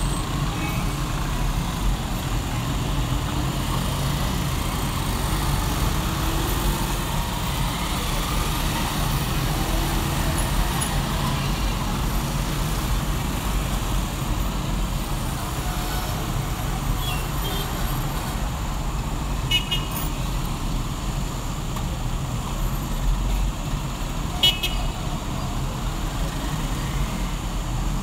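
Steady city street traffic rumble, with short vehicle horn toots about two-thirds of the way through and again near the end.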